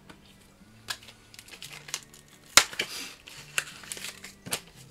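Crinkling and crackling of a foil Pokémon booster-pack wrapper being handled and torn open, a few sharp crackles with the loudest about two and a half seconds in.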